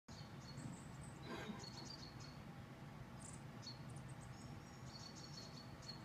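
Faint, high bird chirps and short twitters, scattered through, over a low steady background hum.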